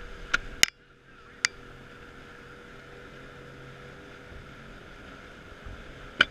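Boat under way, its engine and wake making a steady rushing noise, with a few sharp clicks in the first second and a half. About six seconds in comes a loud metallic snap: the stern tow-release fitting is tripped to let go of the tow rope.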